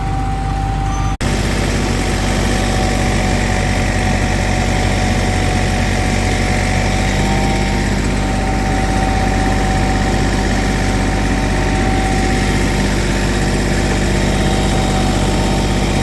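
An engine runs steadily at idle, with a steady whine over it. There is a brief dropout about a second in.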